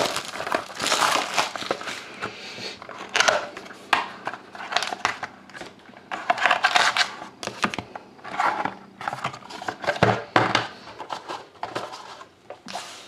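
Plastic shrink wrap crinkling and tearing as it is pulled off a trading-card box, in repeated bursts of rustling with short gaps between them.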